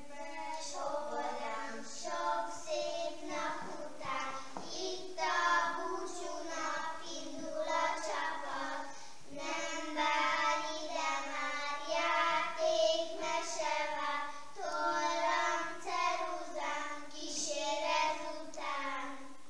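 Young children singing a song together, in clear held notes.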